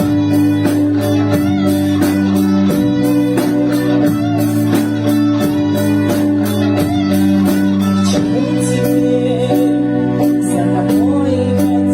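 Band music with guitar over bass and a steady drum beat, a wavering melody line running on top.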